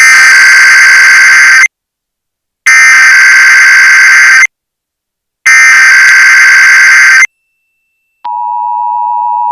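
Emergency Alert System SAME header: three loud screeching digital data bursts of about 1.7 s each, separated by about a second of silence. About eight seconds in, the steady two-tone EAS attention signal begins, marking the start of a broadcast EAS test.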